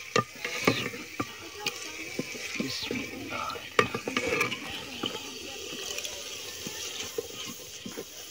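A flat wooden spoon stirring a curry in a clay pot, knocking irregularly against the pot's sides, over a steady sizzle of the hot oil and curry.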